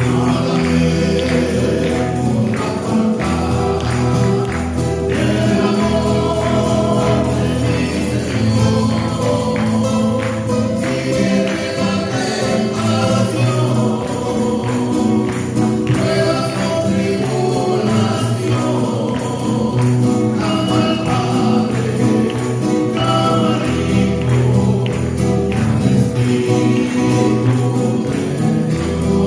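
Live Spanish-language Christian worship song sung by a vocal trio in close harmony over band accompaniment with a steady bass line and a regular percussion beat.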